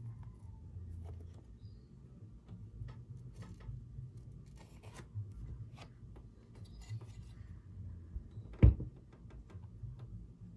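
Hands working a chassis protector onto an RC car's metal chassis plate: light rubbing and scattered small clicks over a low steady hum, with one sharp knock near the end.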